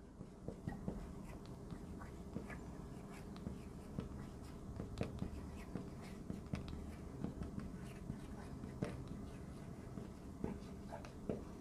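Marker writing on a board: faint, irregular squeaks and taps of the tip as words are written, over a low steady room hum.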